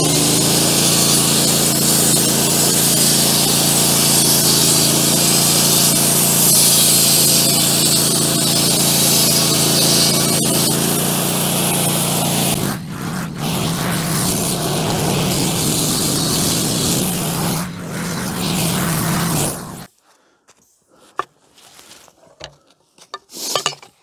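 Wood-Mizer LT15 Go sawmill running, its engine driving the band blade through a frozen, snow-filled pine log. The sound drops and changes a little past halfway, and the engine cuts off suddenly near the end, leaving a few faint knocks.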